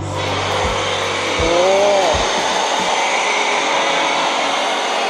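Pressure washer driving a foam cannon, spraying foam in a steady loud hiss that starts abruptly.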